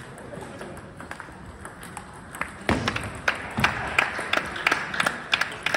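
Quick sharp clicks of table tennis balls striking paddles and tables, starting about halfway in and coming roughly three a second, with a little hall echo.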